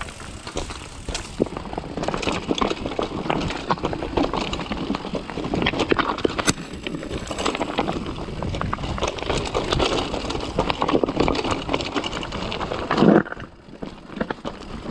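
Mountain bike riding over a loose, rocky trail: a continuous clatter of tyres on stones and the bike rattling over the rocks. There is a short louder burst near the end, and then the sound quietens.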